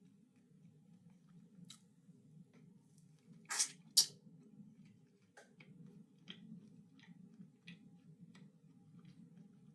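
Close-up chewing and mouth sounds of someone eating, with small wet clicks throughout and two loud, sharp crunches about three and a half and four seconds in, over a low steady hum.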